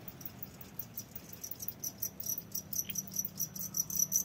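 Crickets chirping in a rearing box: a rapid, evenly repeating high-pitched chirp that grows louder toward the end.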